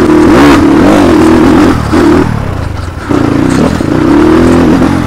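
Motorcycle engine running under throttle, its pitch rising and falling. It eases off about two seconds in and pulls again about a second later.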